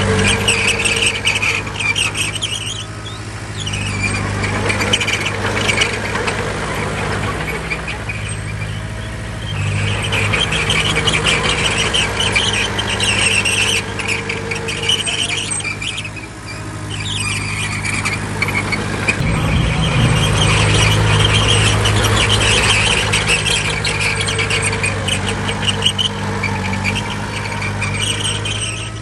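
Bulldozer's diesel engine running under varying load, with a continuous high-pitched squeal and clatter from its steel crawler tracks. The engine dips briefly a few times and runs louder and deeper from about two-thirds of the way through.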